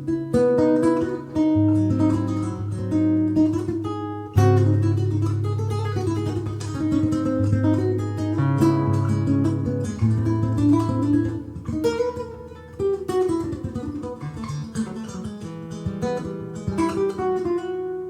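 Solo acoustic guitar: plucked melody and strummed chords over ringing bass notes, with a hard strummed chord about four seconds in.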